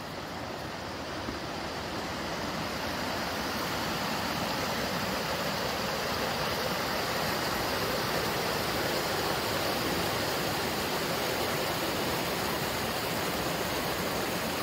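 Small waterfall cascading over boulders: a steady rush of water that grows louder over the first few seconds, then holds.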